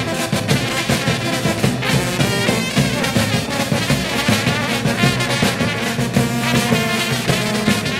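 Balkan brass band playing a lively tune: trumpets and baritone horns over a steady beat of bass drum and cymbal.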